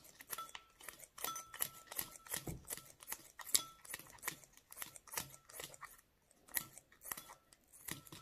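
Kitchen scissors snipping thin plastic strips into tiny pieces: a steady run of short, sharp snips, two or three a second, some leaving a faint brief ring.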